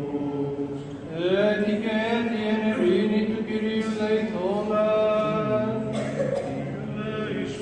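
A male cantor singing Byzantine chant in Greek: a slow, melismatic line of long held notes that slide between pitches, beginning about a second in.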